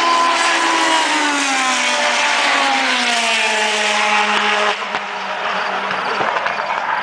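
Race car engine at high revs, its pitch falling steadily over about four seconds before the sound drops a little in level.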